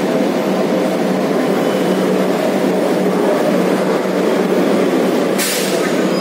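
Kolkata Metro train running into an underground station platform: a steady rumble of wheels and traction equipment with a low hum, and a short sharp hiss near the end.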